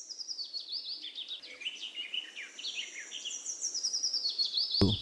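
Small birds chirping and twittering in quick, overlapping high-pitched calls, a morning birdsong effect. A brief click comes just before the end.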